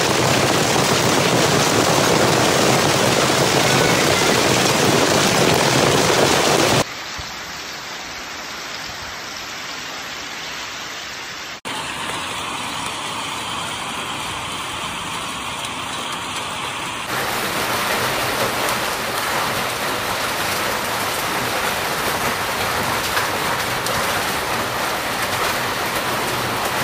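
Hailstorm: hail and heavy rain falling hard in a steady, dense rush of noise. It cuts abruptly to a different, quieter recording of the same downpour about 7 seconds in, and again at about 12 and 17 seconds.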